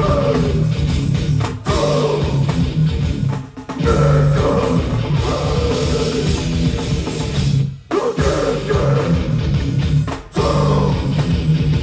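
Hardcore band playing live: distorted guitars, bass and drums in a stop-start riff that cuts out for an instant a few times.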